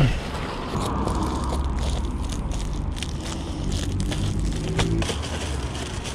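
Reflective foil-faced bubble insulation crinkling and rustling in short irregular crackles as the sheets are handled, bent and cut, over a steady low rumble.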